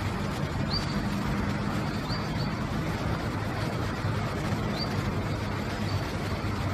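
A handful of short, high bird chirps, each a quick upward flick, come singly and in a close pair over a steady low hum.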